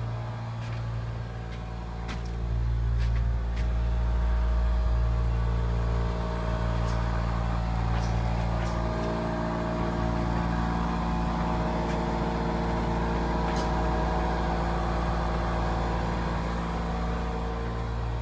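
Steady mechanical hum of a running motor or engine, with a few sharp clicks over it.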